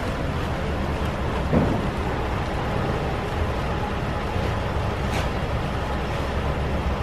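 Steady low outdoor rumble, with one brief thump about a second and a half in and a faint click near the end.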